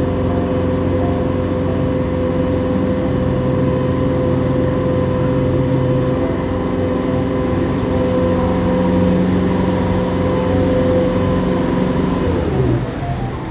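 Water taxi's engine running steadily under way, with a steady hum. Near the end it eases off and its pitch drops.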